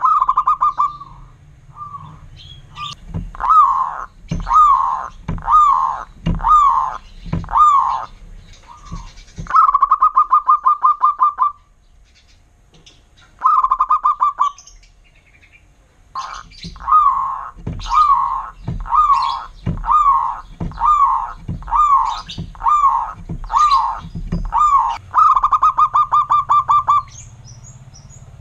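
Zebra dove (perkutut) song: loud cooing near 1 kHz, with fast rattling trills alternating with series of separate swooping coos about one a second, broken by a couple of short pauses.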